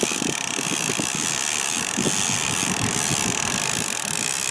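Boat motor running steadily at trolling speed, with wind noise on the microphone.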